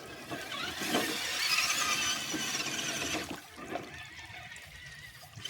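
High-pitched electric motor whine of an RC rock crawler driving under load, running for about two seconds and then dropping away.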